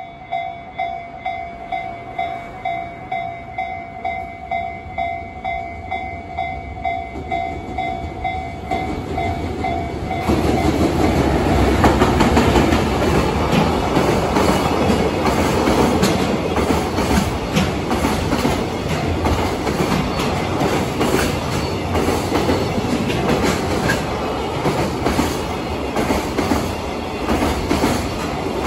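A Japanese level-crossing alarm rings in a steady, pulsing two-tone beat. About ten seconds in, a JR container freight train hauled by an EF210 electric locomotive rushes past at speed, and it drowns out the alarm. The train's wheels clatter rapidly over the rail joints.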